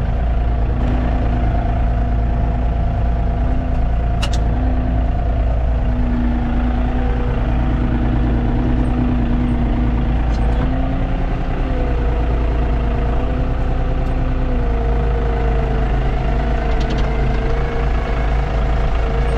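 Farm tractor engine running steadily, a constant low rumble with a droning tone that wavers slightly in pitch, and a couple of faint clicks.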